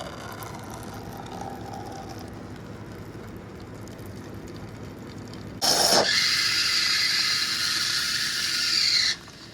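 Car on the move: steady road and wind noise. It steps up suddenly about five and a half seconds in to a much louder, steady hiss.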